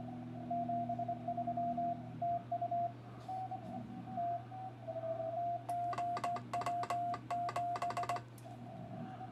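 Morse code (CW) tones of about 700 Hz from an amateur radio transceiver, keyed on and off in dits and dahs, with signals at slightly different pitches. From about six to eight seconds in, a rapid run of sharp clicks from a hand-operated Morse key comes with the tone. A low steady hum lies underneath.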